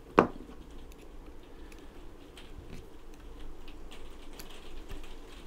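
Small metallic clicks and scrapes of a coaxial DC block and its RF connectors being handled and screwed together by hand, with one sharper knock just after the start.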